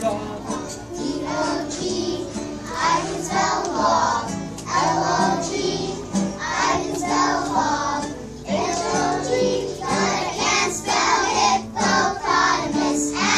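Young children singing a song, accompanied on acoustic guitar.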